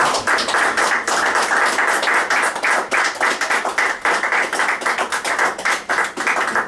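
Spectators applauding, with one person's hands clapping close by and loudest, each clap distinct.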